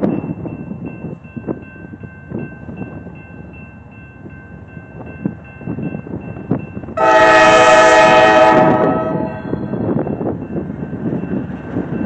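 CSX C40-8W (Dash 8) diesel locomotive sounding one long horn blast about seven seconds in, a chord of several tones held for under two seconds, over the rumble of the approaching train. A grade-crossing bell dings steadily throughout.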